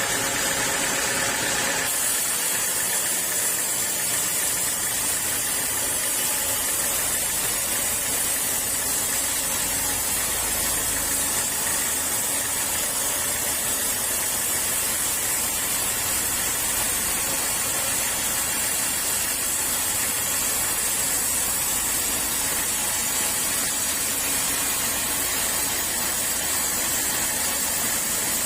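Sawmill saw cutting through a teak log: a loud, steady hiss of cutting that goes on without a break. For the first couple of seconds a machine hum with steady tones runs under it, then drops away.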